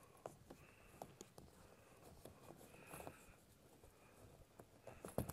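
Near silence with faint scattered clicks and rustles of nylon straps and cargo netting being tied onto an inflatable boat, with a sharper click near the end.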